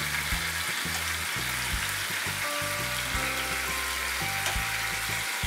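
A tomato, onion and soaked red chilli mixture sizzles steadily in oil in a frying pan on a gas flame. Soft background music plays underneath.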